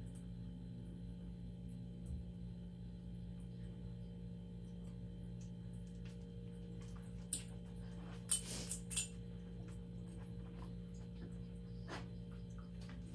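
Steady low electrical hum with a few brief clicks and rattles, the loudest cluster about eight to nine seconds in.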